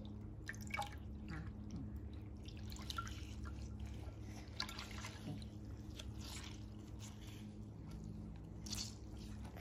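Wet paper towels squeezed and wrung out by hand over glass dishes of water: faint, scattered squishes and drips.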